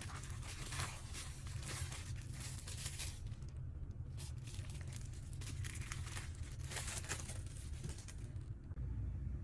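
Packaging crinkling and tearing as it is handled, in irregular rustling spells with a short pause about three and a half seconds in, dying down near the end, over a steady low hum.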